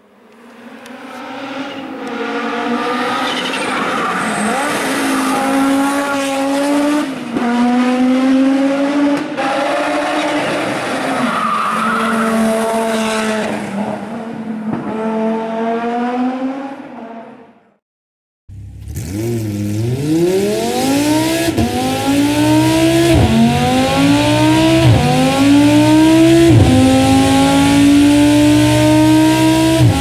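Audi car engine: first running at a wavering, fairly steady pitch, then after a brief break about 18 seconds in, accelerating hard through the gears, its pitch climbing and dropping back at each of several quick upshifts.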